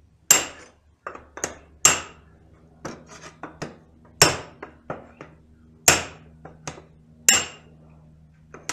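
Hammer striking a hoop driver to drive a steel band down onto the staves of a wooden bucket: a string of sharp, irregular metallic blows with a short ring, the heaviest about every one and a half seconds with lighter taps between.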